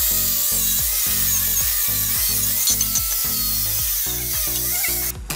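Angle grinder with an abrasive wheel grinding a steel bicycle frame, stripping old paint and rust to bare metal: a loud, steady hiss with a whine that wavers as the wheel bites, cutting off near the end.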